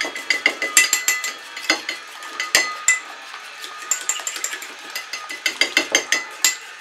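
Metal utensil beating egg yolk and water in a ceramic bowl: quick runs of sharp clinks against the bowl's side, with brief pauses between runs.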